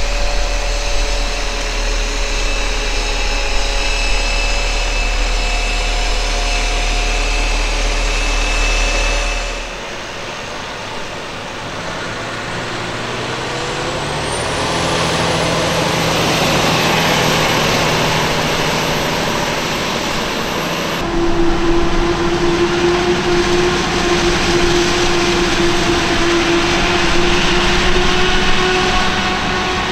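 Heavy diesel farm machinery running, the sound changing abruptly about ten and twenty-one seconds in as one machine gives way to another. A high whine rises in the middle section and holds, and a steady hum carries the last part.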